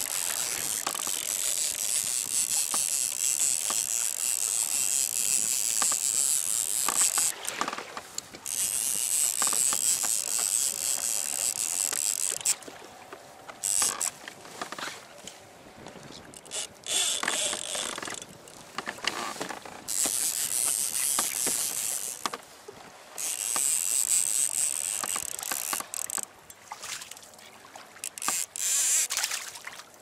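Fishing reel being cranked in bouts of a few seconds, its gears giving a high whirr, as line is retrieved and a fish reeled in to the kayak; small clicks and knocks in the pauses between bouts.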